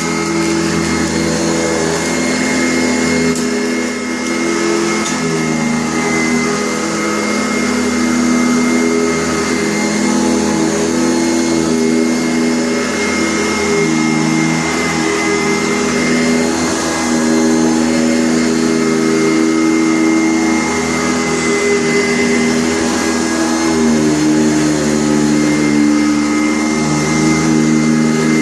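Sanitaire SC684 upright vacuum cleaner running steadily, a motor hum with a thin high whine over it, its pitch wavering slightly now and then.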